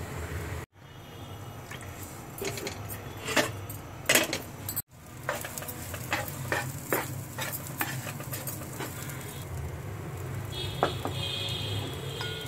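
A spatula scraping and stirring minced meat in a frying pan, with sharp clinks of utensils against metal pots, over a steady low hum.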